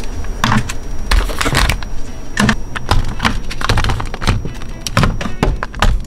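Frequent irregular knocks, clicks and thunks of packaged food being handled: plastic tubs being stacked and a cardboard carton of sealed bowls being moved into a refrigerator.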